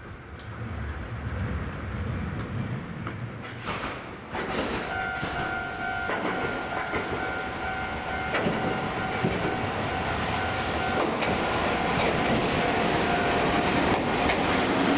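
Hankai Tramway tram, car 706, approaching on its track and drawing up at a stop, its running noise growing steadily louder. A steady high tone is held for several seconds midway.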